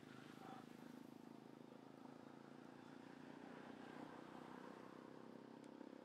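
Faint, steady low hum of a running engine, with one small click near the end.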